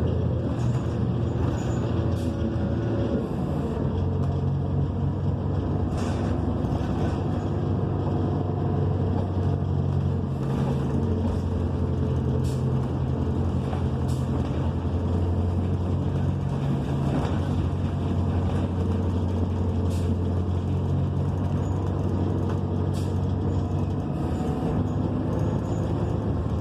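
Interior noise of a New Flyer XN40 city bus under way: its Cummins Westport ISL G natural-gas engine and drivetrain give a low drone that rises and falls every few seconds as the bus speeds up and slows, with occasional short rattles and knocks from the cabin.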